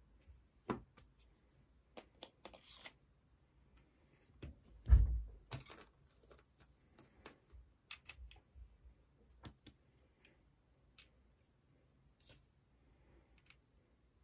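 Scattered small clicks and taps of hard plastic and metal airsoft pistol parts being handled and fitted together by hand. A dull thump about five seconds in is the loudest sound.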